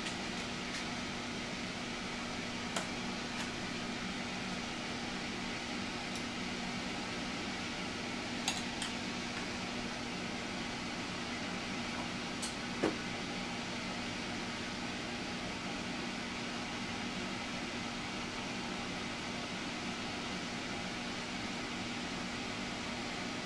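A few light clinks of metal spoons and food pieces touching a glass plate during plating, the sharpest about 13 seconds in. They sit over a steady fan-like mechanical hum.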